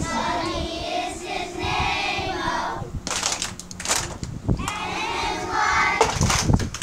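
A group of young children singing together, holding long notes. A few sharp noises cut in about three seconds in.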